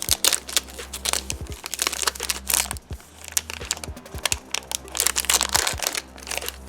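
Crinkling and crackling of trading card packaging being handled and opened, with irregular sharp clicks and rustles.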